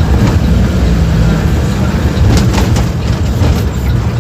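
Diesel engine of a Mercedes-Benz OF-1721 BlueTec 5 bus running with a steady low drone, with a few short knocks or rattles a little over two seconds in.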